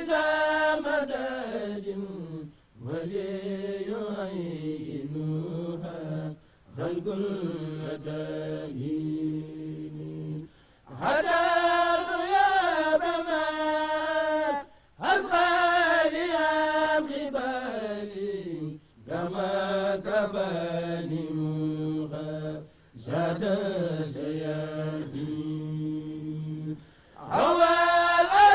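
Men's voices chanting an Islamic devotional poem, unaccompanied, in melodic phrases of a few seconds each with short breaths between. Some phrases come louder and fuller than others.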